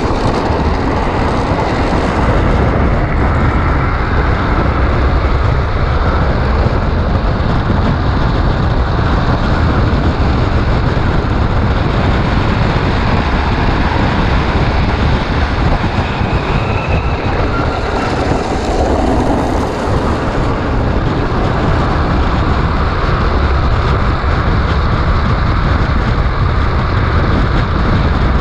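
Wind buffeting the camera microphone and the steady rumble of wheels rolling fast on asphalt, from an unpowered gravity speedtrike speeding downhill. No engine is heard.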